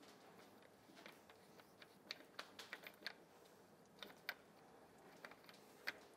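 Faint, irregular light clicks and taps from hands working a Marzocchi MX Comp suspension fork, clustered about two to three seconds in and again near four and six seconds.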